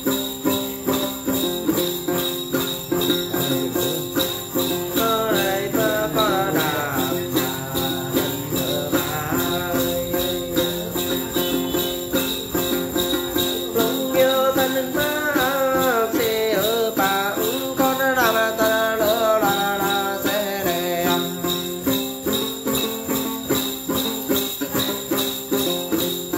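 Then ritual singing of the Tày–Nùng: a voice sings a wavering, ornamented melody over the steady, rhythmic jingling of a shaken cluster of small bells (chùm xóc nhạc), with held string tones underneath from a tính gourd lute. The singing becomes clearer about five seconds in.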